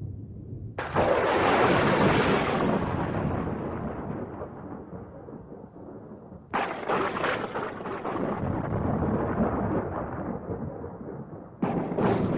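Three thunderclaps from a sound effect: each starts with a sudden crash about a second in, again about six and a half seconds in and near the end, then rumbles away over several seconds.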